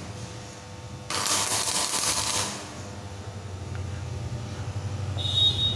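Stick-welding arc crackling and hissing as a tack weld is laid across the root gap of a steel pipe butt joint; it stops about two and a half seconds in. A low steady hum follows, with a brief high-pitched tone near the end.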